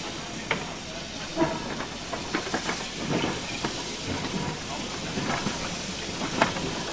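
Small saddle-tank steam locomotive moving slowly over the yard trackwork, with a steady hiss of escaping steam and scattered irregular clanks and clicks from its wheels on the rails and points.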